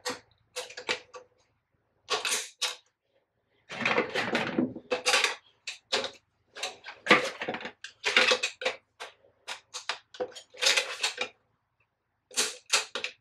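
Wire spring clamps clicking and clattering against a bathroom fan's light cover as they are squeezed and worked into its slots: a string of irregular clicks and rattles.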